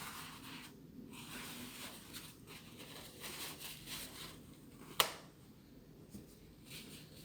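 Hands working on a TV remote control: faint, irregular scratching and rubbing, with one sharp click about five seconds in.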